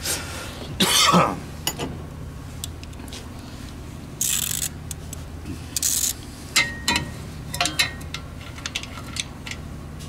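Metal socket and socket wrench being handled: a run of sharp metallic clinks and clicks in the second half, with a couple of short rustles before them and a brief vocal sound about a second in.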